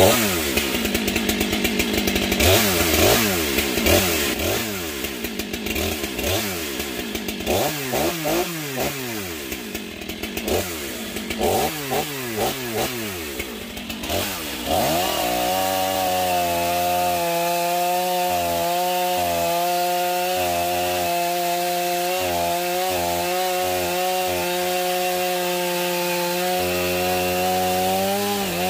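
Stihl MS500i fuel-injected chainsaw with a 34-inch bar, revved up and down again and again for about the first fifteen seconds. It then runs at one steady speed as it skims burnt char off a cedar log, a new saw being broken in at medium speed.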